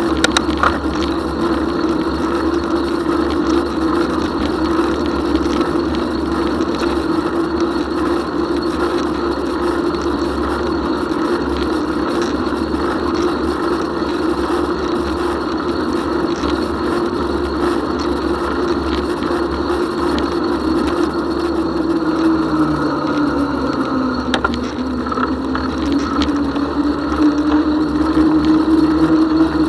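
Bicycle rolling along an asphalt path: a steady hum from the moving bike over a broad rushing noise, with a few faint clicks. About three-quarters of the way through the hum drops lower in pitch for a few seconds, then climbs back as the bike picks up speed again.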